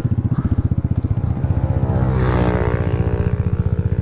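Vespa GTS 300 single-cylinder four-stroke engine breathing through an aftermarket Remus exhaust, running with a steady rapid pulse while the scooter rolls slowly and pulls over to stop. Its pitch shifts about halfway through.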